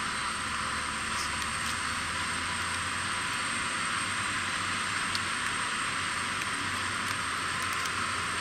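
Turbine noise from a parked Antonov An-124-100: a steady hiss with a thin, constant high-pitched whine.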